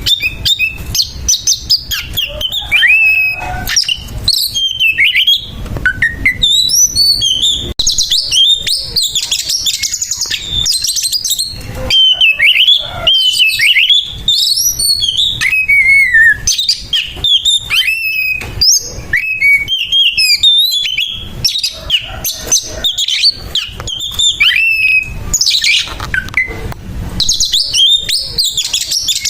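Oriental magpie-robin (kacer) singing its aggressive fighting song: an unbroken rush of fast, varied phrases of high whistled slides broken by harsh, scratchy bursts.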